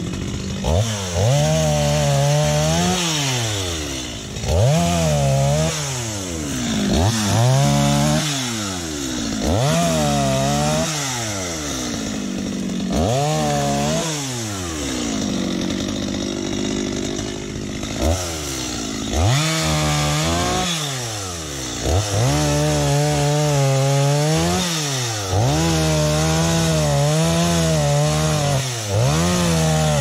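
Stihl MS 250 two-stroke chainsaw revved in repeated bursts, its pitch rising and falling every two seconds or so as it cuts acacia branches. In the last third it is held at high revs for longer, dipping slightly under load.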